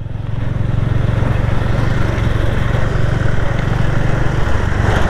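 Motorcycle engine running steadily under way, with wind and road noise over the rider's helmet microphone; it grows a little louder over the first second, then holds steady.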